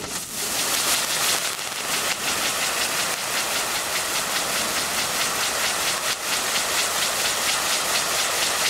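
Spirit Sun multi-effect firework wheel burning: a loud steady hiss of spraying sparks with a fast, even pulsing. It dips briefly at the start as one stage burns out and the next catches.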